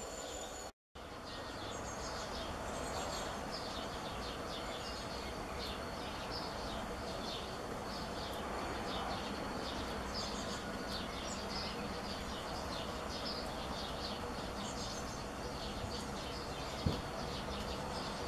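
Wild birds chirping and singing over a steady outdoor noise haze, with one sharp knock near the end. The sound drops out completely for a moment about a second in.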